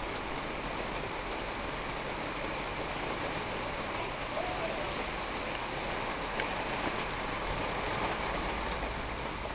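Thunderstorm rain falling steadily, an even hiss.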